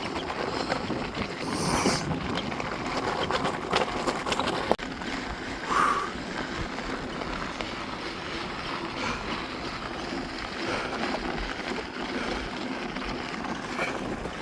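Hydromassage bed's water jets running: a steady rushing, gurgling noise with a few short knocks.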